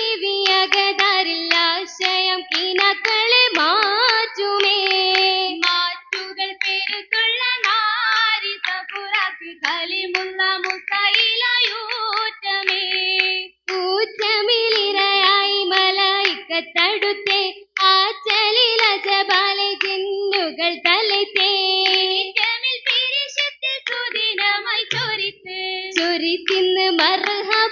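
Oppana: a group of girls singing a Mappila song in unison, accompanied by the rhythmic hand-clapping of the dancers.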